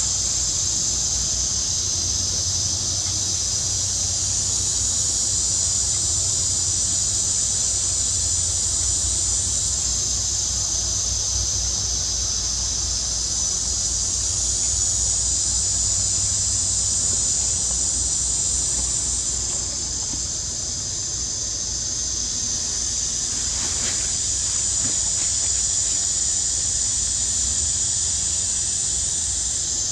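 Steady, high-pitched drone of a forest insect chorus, with a low rumble beneath it.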